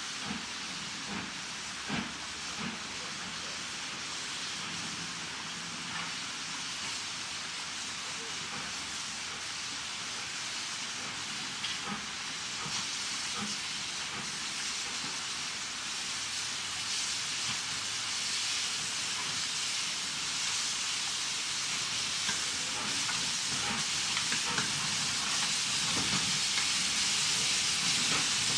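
WD Austerity 2-8-0 steam locomotive moving slowly with a steady hiss of steam that grows louder as it comes closer, with a few light knocks in the first few seconds.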